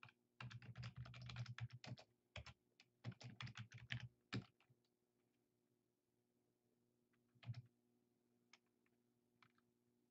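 Typing on a computer keyboard: quick runs of keystrokes for the first four seconds or so, then a few scattered single key taps.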